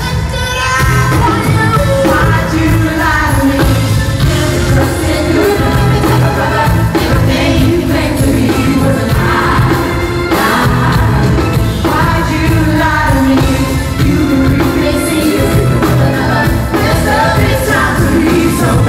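Live pop-rock band playing at full volume, with heavy steady bass and singing over it.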